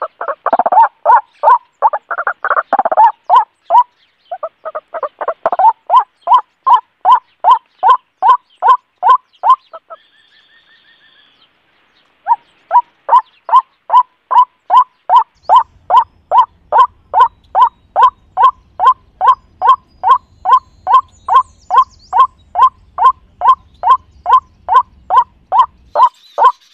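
White-breasted waterhen calling: one note repeated about twice a second in a long, even series. The calls are fuller and overlapping for the first few seconds and break off for about two seconds near the middle.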